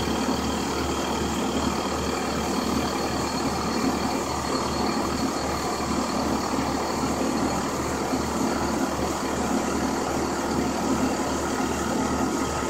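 Grizzly G0678 milling machine's spindle motor, drive belt and spindle running steadily while the end mill cuts a profile in aluminum: an even hum with a regular low pulse and a faint steady whine. The servos make no audible sound.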